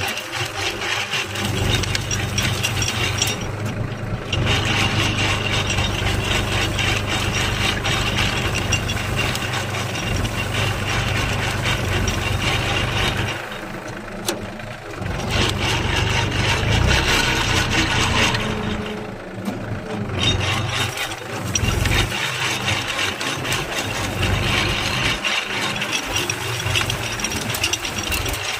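A 36 hp tractor engine running steadily, driving a PTO-shaft-powered manure-spreading implement whose frame rattles. The sound drops briefly twice, about halfway through and again about two-thirds of the way in.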